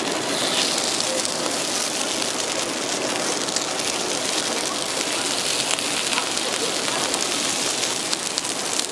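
Steady sizzling and crackling of pulppang (chrysanthemum bread) batter cooking in a hot iron griddle mould, with fine scattered pops throughout.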